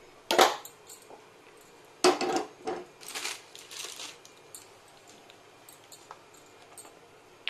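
Metal clatter on a gas stove: a sharp knock just after the start, then an iron kadhai clanks down onto the burner grate about two seconds in, followed by about a second of metal scraping as it is settled in place.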